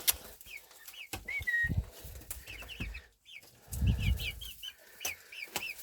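Chickens clucking, a run of short repeated calls while they peck at lettuce. A low muffled bump comes about four seconds in, with a smaller one earlier.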